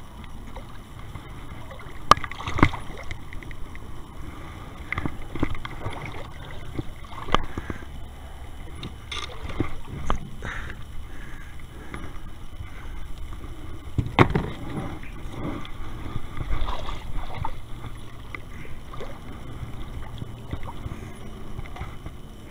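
Scattered knocks and bumps on a kayak, the sharpest about two seconds and fourteen seconds in, over a steady low rumble.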